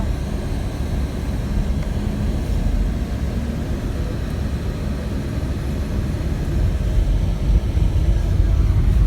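Steady low rumble of engine and road noise heard from inside a moving car, growing a little louder near the end.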